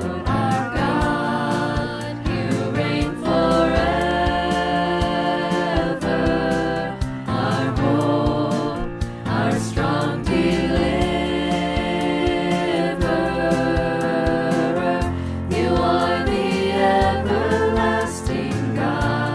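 Contemporary worship song: sung voices holding long notes over a band with a steady beat.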